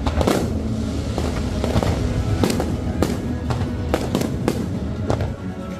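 Fireworks bursting in a rapid series of sharp bangs, about two a second, with music playing underneath.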